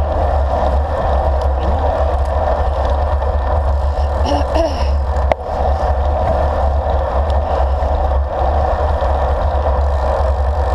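Steady wind rush and low rumble buffeting the microphone of a handlebar-mounted action camera on a road bike riding along asphalt, with a single sharp click about five seconds in.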